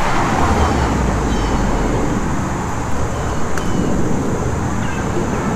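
Steady street traffic noise, with a single faint click partway through.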